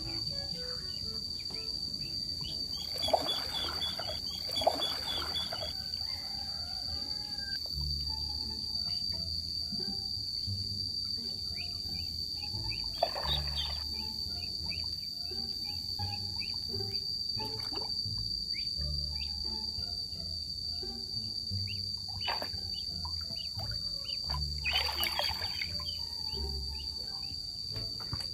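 Insects drone steadily on one high-pitched note. A small monkey splashes now and then as it swims in the pool water.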